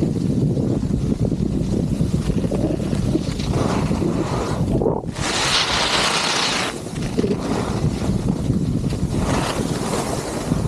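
Wind buffeting the microphone while skiing downhill, a heavy, uneven rumble throughout. Midway it is joined for about a second and a half by a loud hiss.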